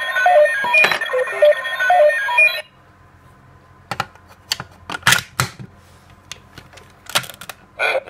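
DX Ixa belt toy playing a quick electronic beeping tune through its small speaker, which cuts off suddenly about two and a half seconds in. A few sharp plastic clicks follow as the toy is handled, and near the end the belt starts another electronic sound.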